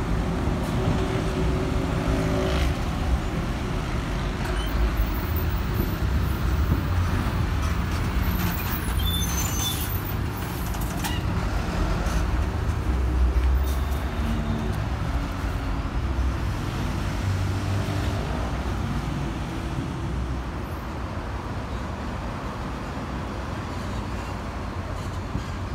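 Diesel city buses running through a bus terminal, their engines steady and low under road traffic noise, with a few short high squeaks about ten seconds in.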